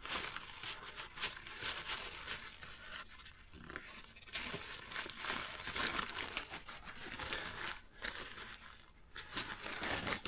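Irregular rustling, crinkling and scraping with small clicks: hands handling parts and material at close range.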